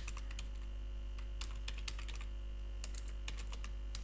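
Typing on a computer keyboard: irregular, quick key clicks over a steady low electrical hum.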